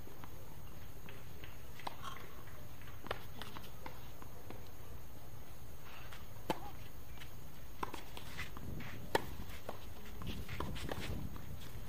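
Tennis ball bounced on a hard court and struck with rackets in a serve and rally: sharp single pops every second or two, the loudest about nine seconds in, over a steady low background noise.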